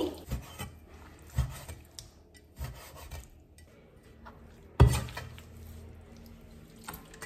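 Chinese cleaver on a wooden chopping board, cutting raw chicken breast into cubes: a few separate knocks of the blade on the wood, the loudest just before halfway, with the blade rubbing and scraping across the board as the pieces are pushed together and scooped up.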